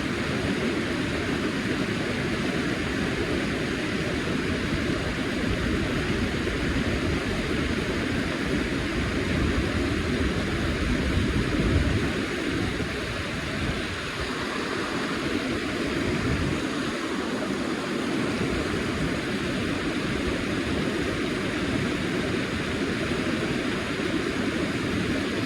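Steady rushing of a river's flowing current, with an uneven low rumble that swells and fades, loudest about eleven seconds in.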